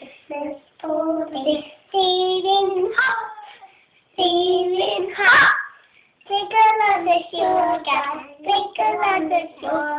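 Young children singing a song unaccompanied, in phrases of held notes with short pauses between them.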